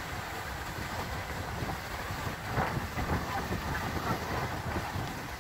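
Riding noise from a motorcycle moving slowly along a dirt road: a steady rumble with wind buffeting the microphone.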